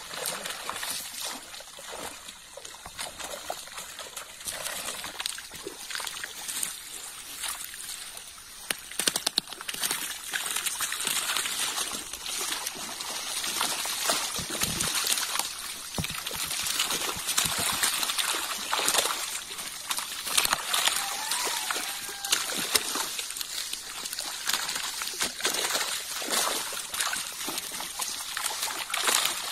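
Water splashing and sloshing: fish thrashing in a drawn-in seine net in shallow pond water, with many small irregular splashes.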